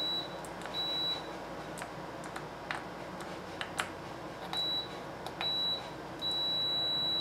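Multimeter continuity tester beeping as test probes are touched to a power supply's terminals: several short high beeps, then a steady beep from about six seconds in. Each beep marks continuity between the probed terminals. Small clicks of the probe tips on the terminals come in between.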